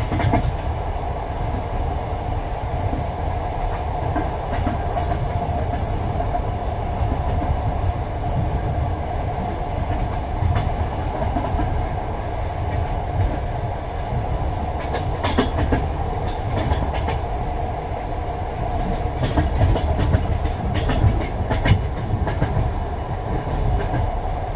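Railway carriage wheels clattering over the rails: a steady low rumble with a running hum, broken by irregular clicks and knocks that grow busier in the second half.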